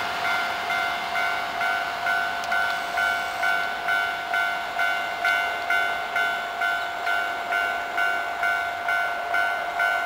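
Electronic warning bell of a Japanese railway level crossing ringing, an even two-tone chime about one and a half times a second over a steady ringing tone.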